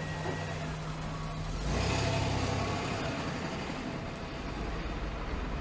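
A car's engine and road noise running steadily, growing louder about two seconds in and then easing back.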